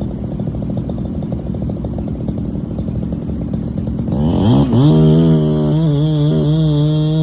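Chainsaw running at low speed with an uneven sound, then revved up sharply about four seconds in and held at a steady high pitch.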